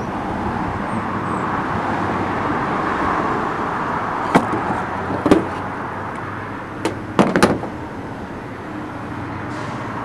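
Pontiac Fiero hood latch and plastic hood release handle, with their cables, knocking and clattering against a tabletop as they are handled and laid down: a few sharp knocks near the middle and a quick cluster of them about three quarters through. Under them runs a steady background hiss and rumble.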